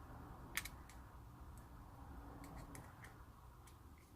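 A few faint, scattered clicks of a small screwdriver working at an idler pulley's bearing, prying out its seal rings; the sharpest click comes about half a second in.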